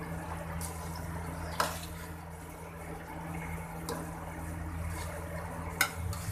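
Soaked rice being spooned from a steel bowl into a steel pot of simmering beef broth: a steady liquid bubbling over a low hum. Three sharp clinks of the metal spoon on steel come in it, the loudest near the end.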